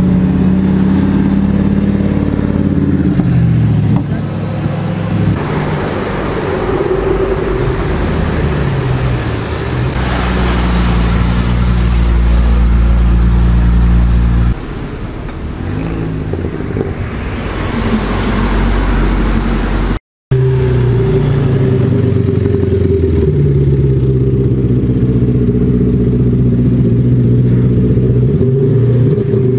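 Car engines running and revving, with the pitch of the engine note shifting up and down several times. The sound cuts out for a moment about twenty seconds in, then resumes.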